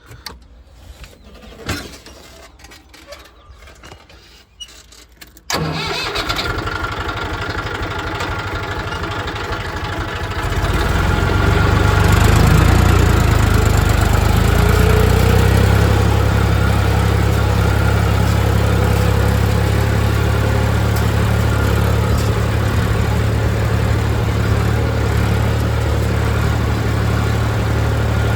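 A tractor engine comes in abruptly about five seconds in, after a few quiet seconds with faint knocks, and runs steadily. About ten seconds in it grows louder and deeper and holds there.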